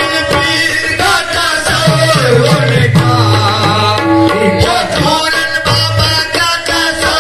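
Qawwali music: harmonium and tabla playing, with a voice singing over them.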